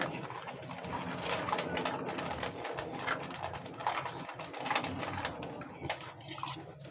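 A dog crunching and chewing dry kibble from a stainless steel bowl, in quick irregular crunches and clicks.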